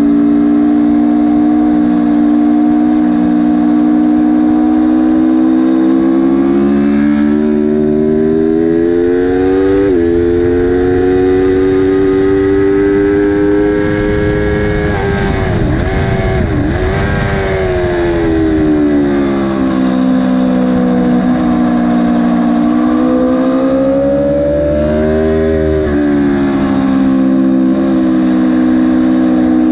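Aprilia sportbike engine at full throttle, seen from the rider's seat: its pitch climbs through the gears with short drops at each upshift up to about 144 mph. About halfway it falls away under hard braking with quick downshift blips, then rises again out of the corner and falls near the end, all over a steady rush of wind.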